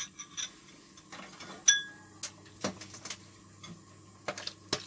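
Cooking utensils clinking and knocking against pots and bowls: a string of short, irregular clicks and knocks, with one ringing clink just under two seconds in.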